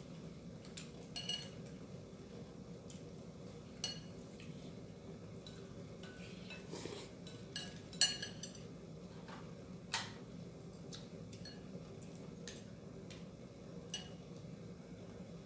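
Chopsticks clinking against ceramic bowls and dishes, a sharp clink every few seconds with a short bright ring, the loudest about eight seconds in, over a steady low hum.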